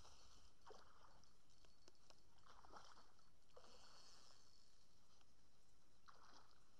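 Near silence, broken by four faint, soft swishes spread through it.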